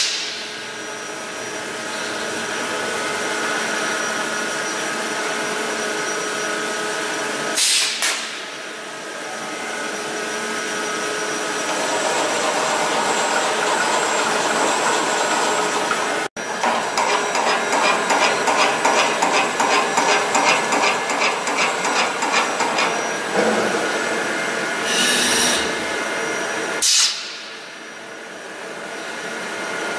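2010 Yaskawa Motoman welding robot running: a steady machine hum with several held whining tones as the arm moves. For several seconds in the middle there is a rhythmic pulsing of about three beats a second, and the sound breaks off abruptly a few times.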